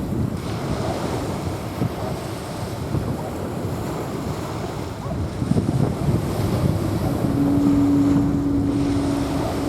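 Waves washing onto a sandy beach, with wind buffeting the microphone. A steady low hum starts about seven seconds in and stops shortly before the end.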